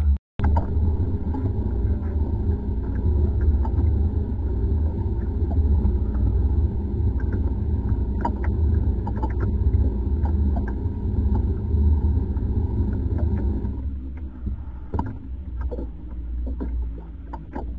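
Steady low rumble of a boat's engine running, with scattered light clicks over it. The rumble falls to a quieter level about fourteen seconds in.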